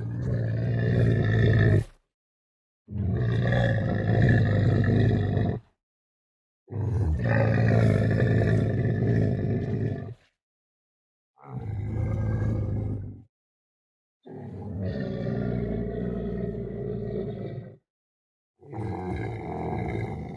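Camel calling: six long, low bellowing calls, each about two to three and a half seconds long, with short silent gaps between them.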